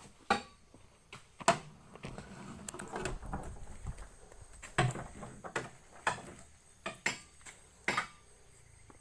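Scattered sharp knocks and clatters, about seven over the stretch, of oil palm fruit being thrown into a steel tractor trailer.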